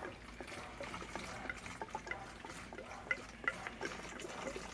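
Fuel being poured and handled while mixing two-stroke fuel: faint liquid pouring and sloshing with many small irregular clicks and taps from the containers.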